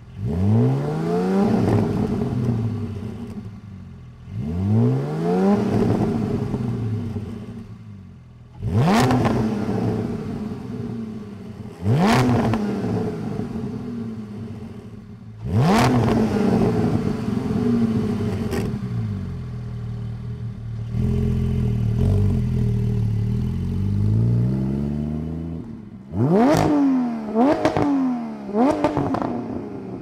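Porsche 718 GT4's 4.0-litre flat-six through a Soul Performance race exhaust with resonated muffler, blipped five times from idle, each rev rising and falling back to idle a few seconds apart. It settles into a low rumble while rolling, then three quick sharp revs near the end.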